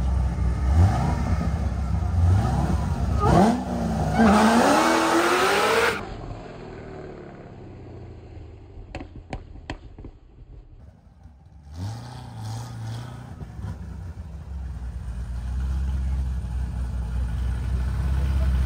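A supercharged Corvette C6 V8 and a turbocharged BMW M240i inline-six launch and accelerate hard, their pitch climbing and breaking at several gear shifts for about six seconds before the sound cuts off abruptly. After a quieter stretch with a few sharp clicks, engines idle low, getting louder near the end.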